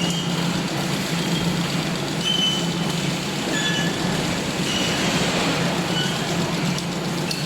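Wire mesh welding machine running: a steady low hum under broad mechanical noise, with brief high squeaks now and then.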